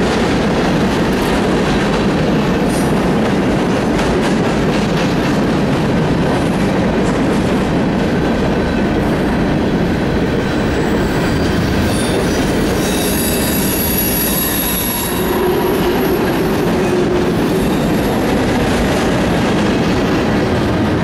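Union Pacific freight cars rolling past: a steady rumble and clatter of steel wheels on rail, with a high-pitched wheel squeal for a few seconds midway.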